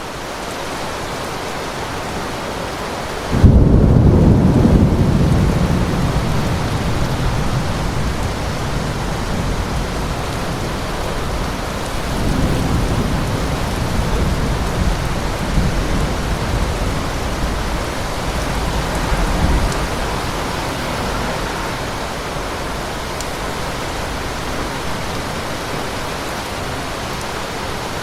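Steady rain with thunder: a sudden loud thunderclap about three seconds in that rumbles away over several seconds, then a second, softer rolling rumble midway that dies out.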